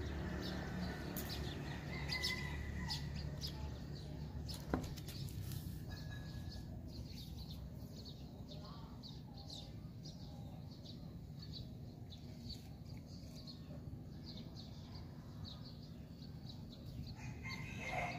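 Birds calling and chirping in short repeated notes over a steady low background, with a single sharp click about five seconds in.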